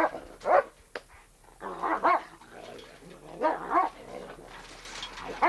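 Barks and yelps from a German Shepherd and a gray wolf scuffling together, in four short bursts, one of them a quick double.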